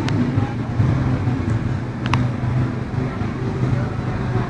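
Small single-cylinder pit bike engine running at low revs, a steady low hum, with a sharp click about two seconds in.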